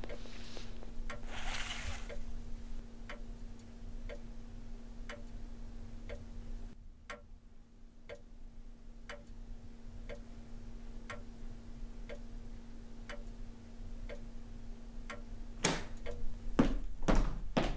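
Clock ticking steadily over a low, steady hum, with a few louder knocks near the end.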